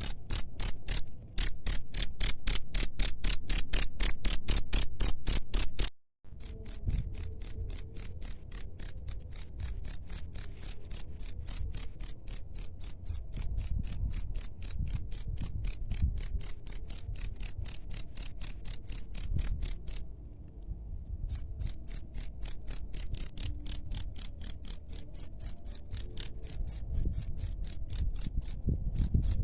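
Cricket chirping: a steady train of short, high-pitched chirps at about three to four a second, broken by two short gaps of about a second.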